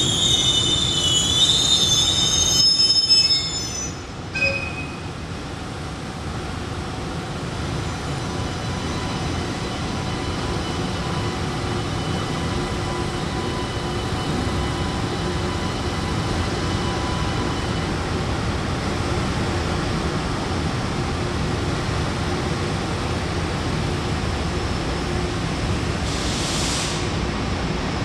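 Freight train rolling past, its wheels squealing loudly for the first four seconds or so, then a steady rumble of the train running on the rails.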